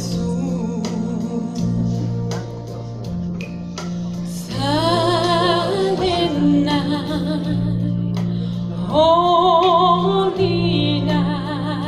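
A woman singing a solo hymn with strong vibrato over electronic keyboard accompaniment: sustained low notes with short plucked, harp-like notes. Her sung phrases come in about four and a half seconds in and again about nine seconds in.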